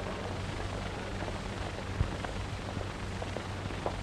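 Steady hiss and crackle of an old optical film soundtrack, with a low mains-like hum underneath and a few faint clicks, one sharper pop about two seconds in.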